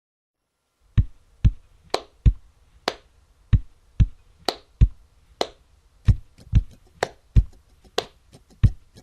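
Drum beat opening a song's backing track: sharp kick and snare hits, about two a second, starting about a second in after silence.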